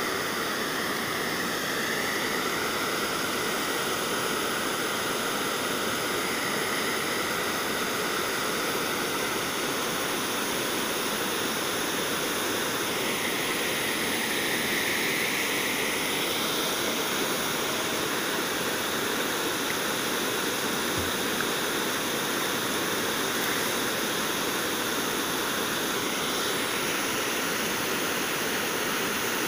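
Steady rushing of river water pouring down a small cascade, an even noise that holds without a break.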